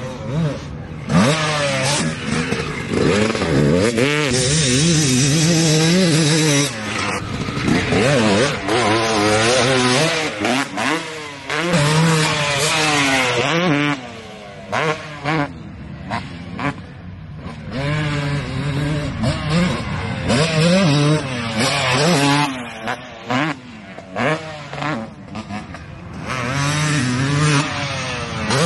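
Tom Morgan Racing YZ315 stroker two-stroke dirt bike engine revving hard, its pitch climbing and falling again and again as the throttle is opened and chopped, with short drops in between.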